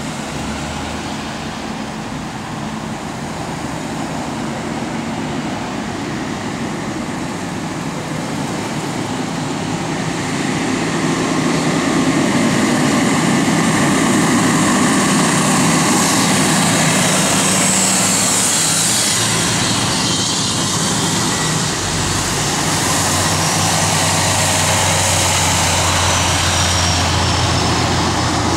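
Procession of road vehicles driving past: a police car, then a fire engine whose engine grows louder from about ten seconds in and stays the loudest sound, with steady low engine tones as a fire department SUV follows.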